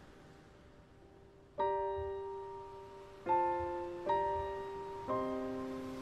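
Slow background piano music: a faint held note, then four chords struck, the first about one and a half seconds in, each left to ring and fade.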